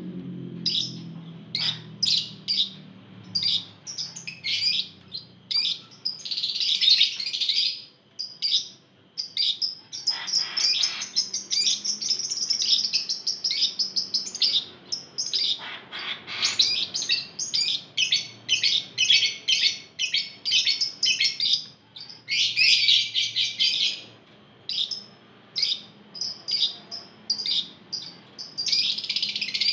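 A flock of caged Fischer's lovebirds calling: many short, shrill chirps, broken several times by long runs of rapid chattering notes lasting a few seconds each.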